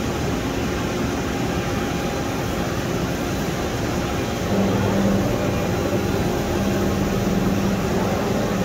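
Toshiba BP-150 R22 CNC horizontal boring mill running under power: a steady machine hum, with a low steady tone that comes in about halfway through as something on the machine starts up.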